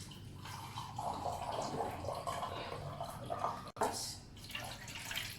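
Water poured from a glass, splashing for about three seconds. The sound then breaks off sharply, followed by a few shorter splashes.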